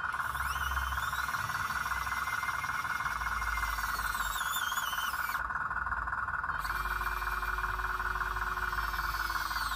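Electric motors of radio-controlled construction models whining. One whine rises just after the start, holds, wavers and cuts off about halfway; a lower, steady whine starts about seven seconds in and drops away near the end, as the motor stops. A steady high-pitched chorus runs underneath throughout.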